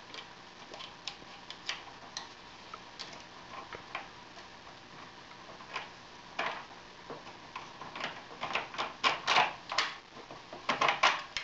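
Small metal clicks and taps of a bolt and spacers being fitted through the base mount of a Stryker stretcher's gas spring. Irregular, sparse at first and coming thicker in the last few seconds.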